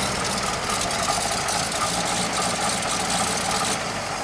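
1934 Buick Model 66C's straight-eight engine idling steadily.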